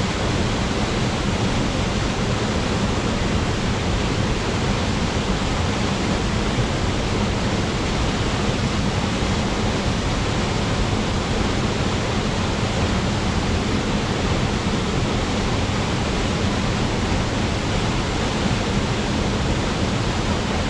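Waterfall pouring steadily: a constant, even rush of falling water with no change.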